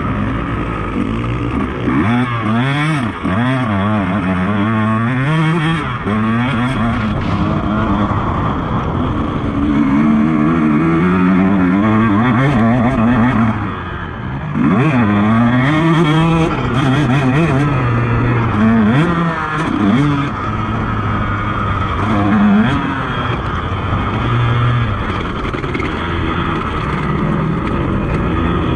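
KTM motocross bike's engine revving hard and easing off over and over, its pitch rising with each burst of throttle and dropping back between, as it is ridden through a lap of a dirt track.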